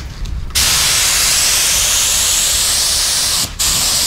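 Compressed air hissing through a gravity-feed paint spray gun as it sprays paint onto the truck's hood. There are short, broken bursts at first, then a steady spray from about half a second in, with one brief break near the end.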